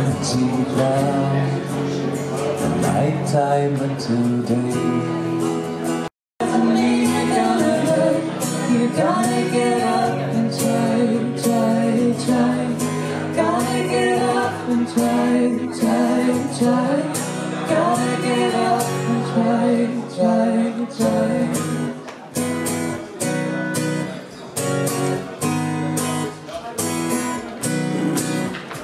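A woman and a man singing to a strummed acoustic guitar, played live. The sound cuts out completely for an instant about six seconds in, and near the end the guitar strumming carries on with the voices pausing.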